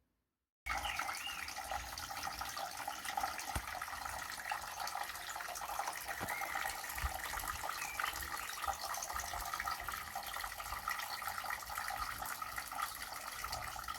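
Homemade cork-and-cement waterfall running, water splashing and trickling steadily. The sound cuts in suddenly about a second in.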